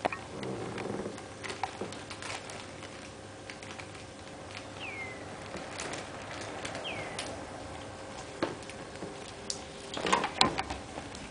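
A kitten playing on a wooden parquet floor: scattered light taps and scuffs of its paws and of the feather boa and cloth tunnel it is tugging, with two short high chirps falling in pitch about halfway through. A cluster of louder sharp knocks comes near the end.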